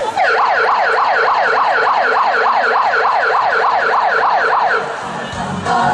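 Emergency-vehicle siren in a fast yelp, its pitch rising and falling about four times a second, cutting off shortly before the end.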